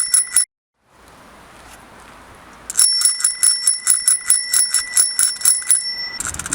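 Bicycle bell rung rapidly over and over, about four dings a second. It cuts off abruptly about half a second in, and the ringing starts again near three seconds.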